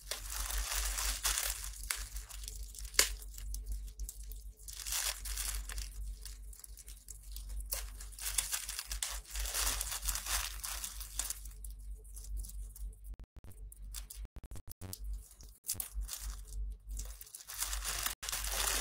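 Plastic packaging crinkling and rustling as it is handled, in irregular bursts with short pauses.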